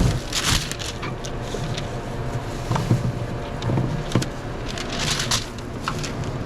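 Scattered knocks and rustling of a sandwich being put together and handled, over a steady low hum of counter equipment.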